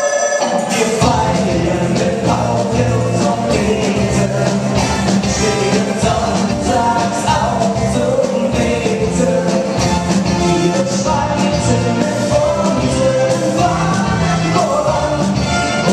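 Live rock band playing: drum kit, electric guitar, electric bass and keyboard driving a steady beat, with a singer's voice over the top.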